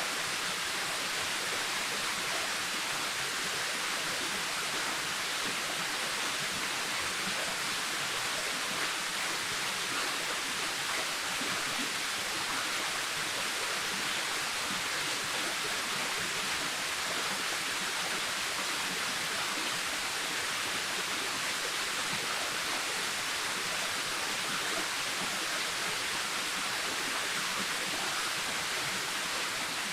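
Waterfall pouring steadily: an even, unbroken rush of falling water, mostly high and hissy.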